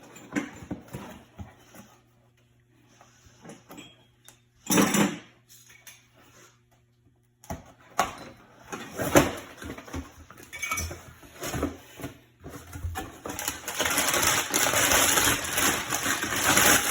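Metal brake parts and hand tools clinking, knocking and being handled on a car's rear brake, with a loud clatter about five seconds in and a few seconds of continuous scraping noise near the end.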